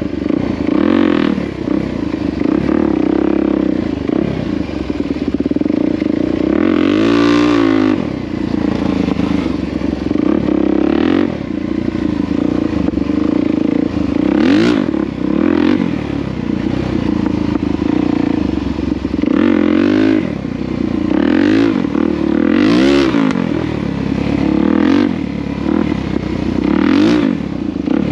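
Dirt bike's single-cylinder four-stroke engine running while ridden, revving up and falling back repeatedly every few seconds.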